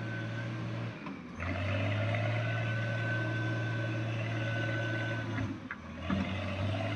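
Wheel loader's diesel engine running close by as it pushes a heap of earth with its bucket: a steady low drone that dips briefly about a second in and again near the end.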